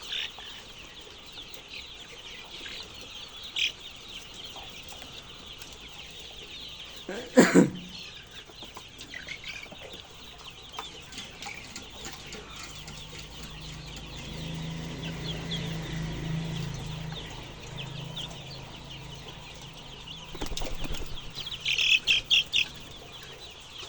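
Chickens clucking and calling steadily, with wings flapping. There is one loud thump about seven seconds in, and a quick run of loud calls near the end.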